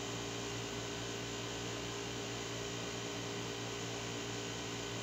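Room tone: a steady hiss with a low hum, no distinct events.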